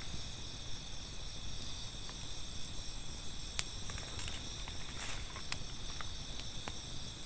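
Crickets and other night insects chirring steadily in several high pitches, with a few scattered sharp clicks and pops.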